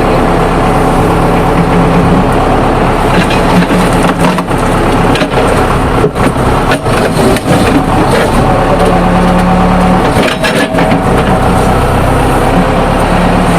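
A loud motor or engine running steadily, with repeated cracking and knocking noises throughout.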